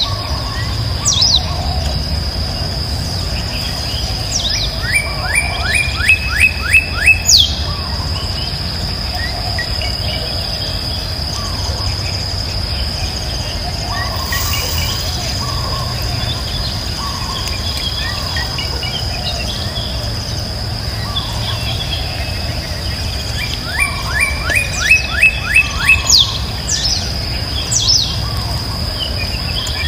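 Birds calling over a steady high-pitched insect drone. Twice a bird gives a fast run of five or six rising notes, the loudest sounds here: once about five seconds in and again about twenty seconds later. A low rumble runs underneath.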